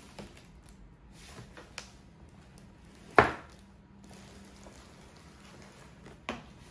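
Cardboard box holding an espresso machine being handled and tipped over onto its side on a table: light knocks and rustling, with one loud sharp knock about three seconds in and another sharp knock near the end.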